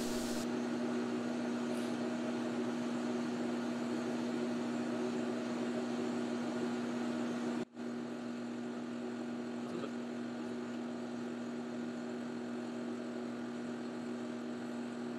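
Metal lathe running steadily under power feed while a carbide parting tool cuts into 304 stainless steel bar, a constant hum with an even tone. The sound cuts out briefly about eight seconds in, then carries on slightly quieter.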